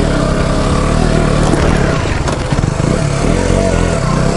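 KTM 125 Duke's single-cylinder four-stroke engine running as the motorcycle is ridden along a grassy dirt track, its revs rising and falling with the throttle.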